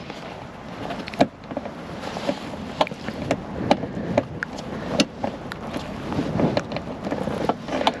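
Irregular clicks and light metallic knocks of a small ratchet spanner being worked onto a nut in a cramped space under a car seat.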